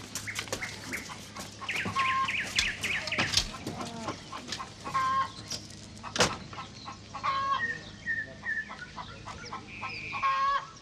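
Chickens clucking in short repeated calls, with a few sharp clicks, the loudest about six seconds in, and a low steady hum underneath.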